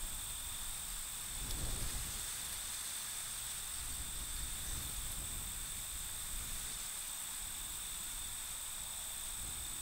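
Open-field ambience: a steady, unbroken high-pitched insect drone, with low wind rumble on the microphone that swells in a gust about a second and a half in.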